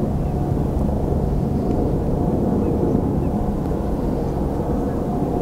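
Steady low rumble of an H5 series Shinkansen train running along an elevated viaduct, with a faint steady whine above it.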